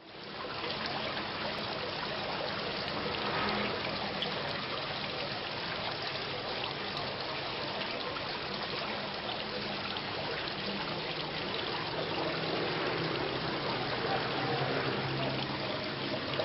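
Steady rain falling, an even hiss of drops that fades in quickly at the start and then holds level.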